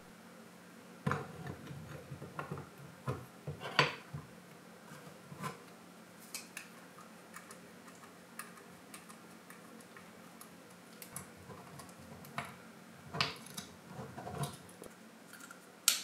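Scattered light clicks and taps of a coffee grinder's metal motor and plastic housing being handled and screwed together with a small screwdriver, the sharpest click near the end.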